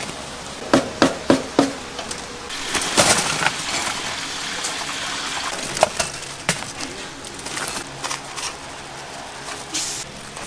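Kitchen work sounds: four quick sharp knocks about a second in, then a short gush of water and a few scattered clinks.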